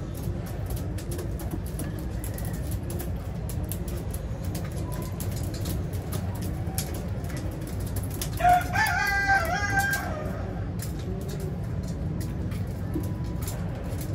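A rooster crows once, a single call of about a second and a half starting around eight and a half seconds in, over pigeons cooing in a low repeated pattern throughout.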